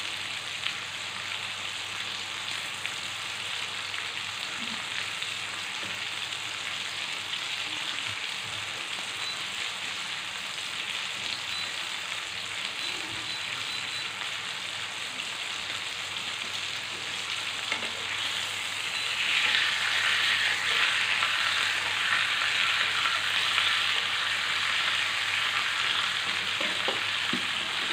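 Lamb shoulder pieces sizzling in hot oil in a grill pan: a steady frying hiss that grows louder about two-thirds of the way through.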